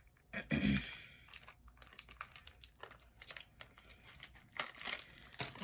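Snack packaging crinkling and rustling as it is handled, in short irregular crackles, loudest about half a second in.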